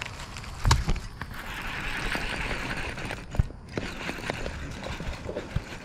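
Handling noise from a baitcasting reel and fishing line being worked by hand: a sharp knock just under a second in, then rustling and scattered small clicks.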